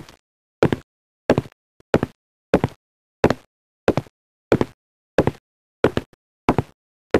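A regular series of sharp impacts, about three every two seconds, each followed by a quick second hit.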